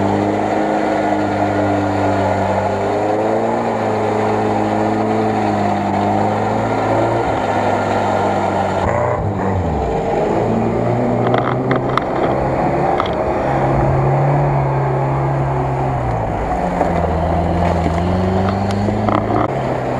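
Off-road 4x4 engines revving under load, first a UAZ-469 in mud and water, the revs rising and falling. The sound changes abruptly about nine seconds in to another vehicle's engine.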